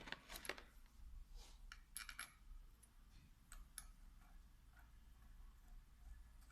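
Faint clinks and taps of small metal parts and tools being handled: a cluster near the start, then more about two seconds in and about three and a half seconds in, some with a brief metallic ring.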